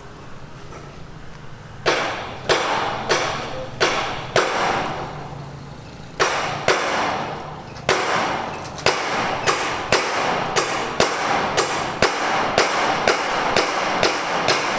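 Hammering on a building site: repeated sharp blows, each with a short ringing tail, a few spaced strikes at first and then a steady run of about two a second.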